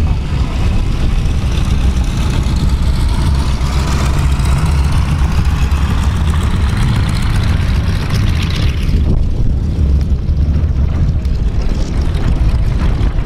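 Boeing 747-8F's four GE GEnx turbofans heard on approach: a jet roar whose higher hiss builds for about eight seconds and then thins out abruptly, over a heavy low rumble that runs throughout.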